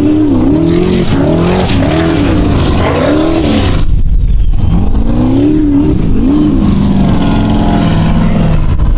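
Formula offroad hill-climb buggy's V8 engine revving hard, its pitch swooping up and down about once a second as the throttle is worked, with a loud rushing noise over it for the first few seconds. The engine settles into a steadier note near the end.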